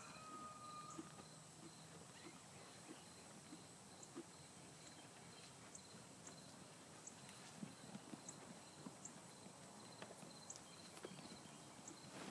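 Near silence: faint outdoor ambience with scattered soft knocks and a faint repeating high chirp.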